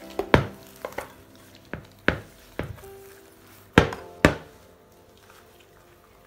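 Risen yeast dough being punched down and slapped in a plastic mixing bowl, a series of dull thumps. About four seconds in come two louder knocks half a second apart as the dough is turned out of the bowl onto the counter.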